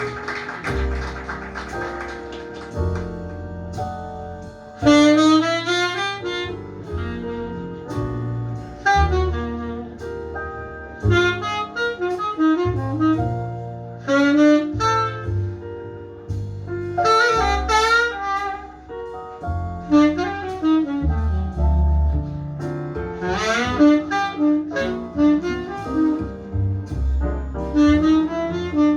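Jazz ballad recording played back through Spendor SP1 hi-fi loudspeakers: a tenor saxophone plays a slow melody with wide vibrato over a low bass line.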